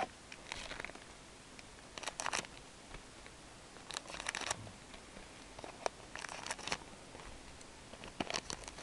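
Trading card pack wrappers crinkling and cards being pulled out of the opened packs, in short bursts of rustling every second or two.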